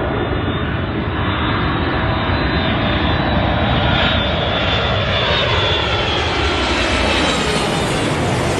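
Boeing 747's four turbofan engines on landing approach, passing low overhead: a loud, steady jet rumble and hiss with a whine in it. The hiss grows brighter near the end as the plane comes directly over.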